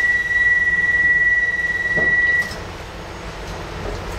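Docklands Light Railway train's door warning tone: one steady, high electronic tone that cuts off about two and a half seconds in. Afterwards only the low hum of the stationary train remains.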